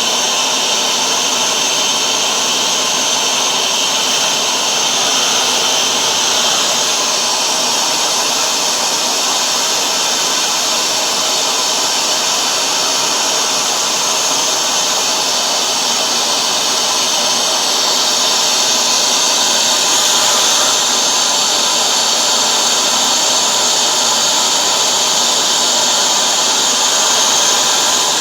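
Hoover Dual Power Max carpet washer running in tool mode, its suction motor giving a steady, even whine while the hand tool cleans a spot on a floor mat.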